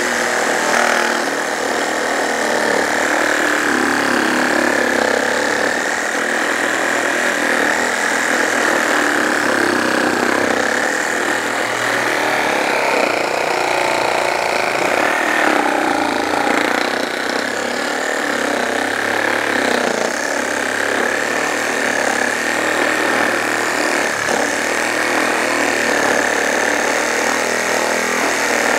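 JLD cordless reciprocating saw cutting through a thick block of wood without pause. A steady high motor whine, wavering slightly as the load changes, sits over the rasp of the blade.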